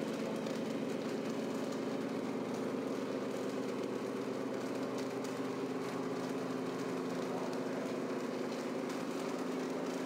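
An RC model truck's engine-sound module playing a diesel idle: a steady, even drone of several low tones that doesn't rise or fall.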